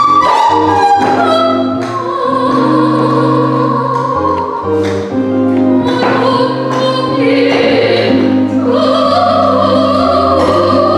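Operatic-style singing with wavering, held notes over sustained electronic keyboard chords and bass notes.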